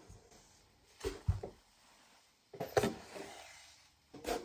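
Quiet rustles and knocks from handling a fabric-covered book with plastic pocket pages as pink embroidery thread is pulled through its sewing holes. There are three short bursts: about a second in, near the middle, and near the end.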